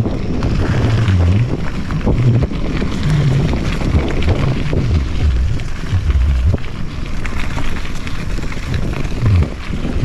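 Mountain bike ridden along a dirt trail: wind buffeting the action camera's microphone in uneven gusts, over tyre noise and frequent small rattles and knocks from the bike on the rough ground.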